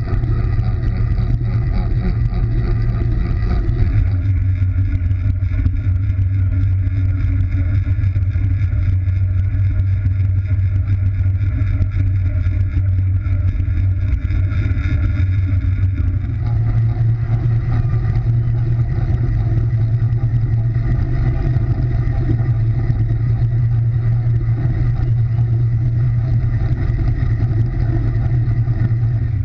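Wind rushing over a bike-mounted camera's microphone, together with the rumble of a track bike's tyres on the wooden velodrome boards at race speed. It is a steady, loud, low roar that shifts slightly about four and sixteen seconds in.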